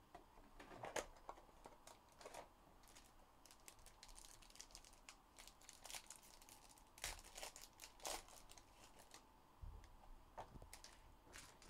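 Quiet, scattered crinkling and tearing of plastic wrapping as a trading-card box's clear cellophane is peeled off and a foil card pack is torn open.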